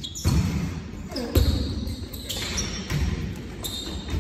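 A volleyball being struck and hitting the court, several sharp slaps in a large sports hall.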